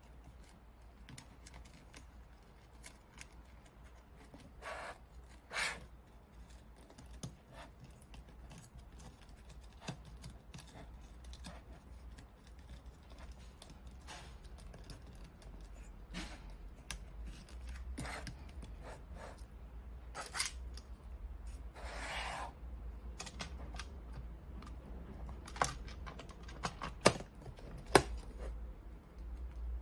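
Hands handling the plastic housing and internal parts of a LAUNCH X-431 Pro Mini scan tablet: scattered small clicks, scrapes and rustles, with a few sharp plastic clicks near the end as the back cover is pressed on.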